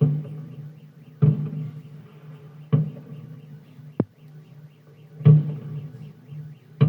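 Fireworks salute shells bursting: six booms about a second and a half apart, each fading away, one a shorter, sharper crack, over a steady low hum.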